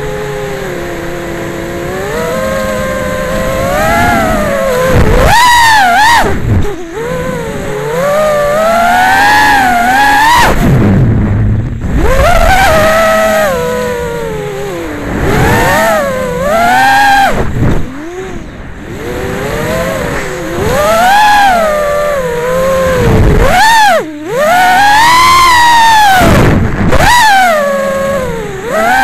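Wizard X220S racing quadcopter's brushless motors and propellers whining, recorded from on board. The pitch keeps swooping up and down with the throttle, and the sound drops away briefly a few times.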